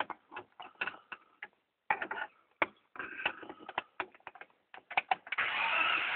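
A BMW that cranks but will not start: a run of quick, irregular mechanical clicks, then about five seconds in a steady noise of the starter cranking the engine, which does not catch.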